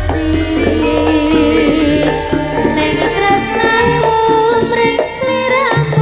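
Jaranan sentherewe music played live and loud: drums under a wavering melody line with singing.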